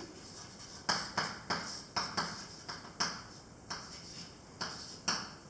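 Chalk writing on a blackboard: about a dozen short, sharp taps and scrapes, irregularly spaced, as the words are written.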